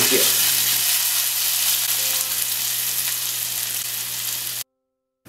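A hot coconut-oil tempering of mustard seeds, shallots and curry leaves sizzling as it is poured over a shrimp curry. The hiss slowly dies down, then the sound drops out entirely near the end.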